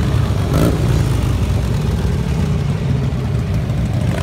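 Motorcycle engines running at low speed, a steady deep rumble, with one short sharp click just over half a second in.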